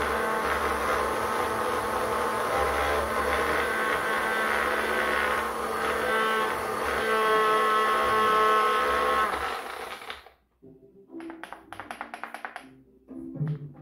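Personal bullet-style blender running under load, grinding cabbage pachadi ingredients into a paste with a steady whine; the motor cuts off about ten seconds in. After that comes a fast run of rhythmic knocks as the blender cup is shaken to mix the contents.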